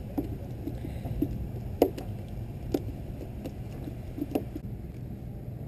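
A small leatherjacket fish flopping on wooden dock planks: a run of irregular light slaps and knocks, the loudest a little under two seconds in, dying away after about four and a half seconds, over a steady low rumble.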